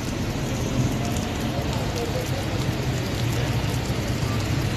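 Rain falling steadily on a wet street, with the low hum of car engines running underneath.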